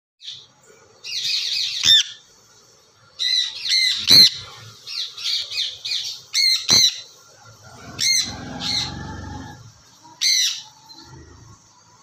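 Sun conures squawking: a string of loud, shrill, harsh calls, singly or in quick runs of two or three with short pauses between. A lower, rougher sound lasts about a second and a half about two-thirds of the way through.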